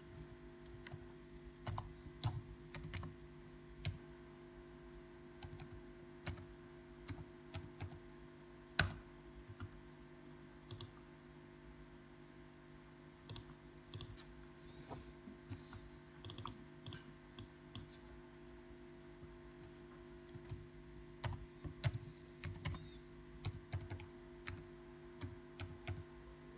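Faint computer keyboard typing and clicking: irregular keystrokes in short runs with pauses between, over a low steady hum.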